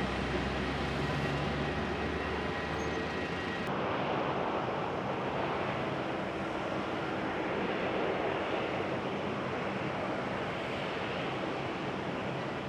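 Jet airliner engines running with a steady rushing roar; about three and a half seconds in the sound changes abruptly and a thin steady whine drops out.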